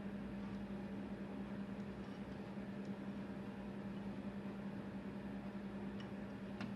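Steady low hum over a constant hiss, with a couple of faint ticks about six seconds in.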